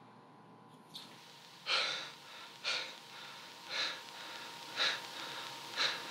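A man sobbing: short, sharp gasping breaths, evenly spaced about once a second, after a second of near silence.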